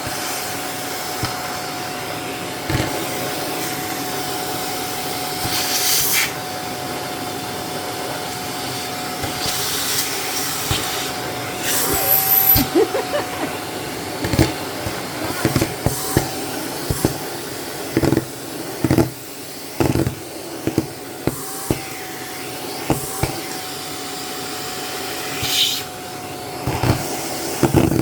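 Shark vacuum cleaner running steadily with a constant whine, broken by many short clattering knocks as foam packing peanuts are sucked up the nozzle, coming thick and fast in the second half.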